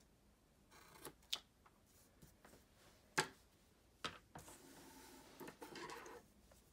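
Quiet paper handling: a few sharp little clicks and taps, then about two seconds of a planner page sliding and rustling across a wooden desk as it is moved into place.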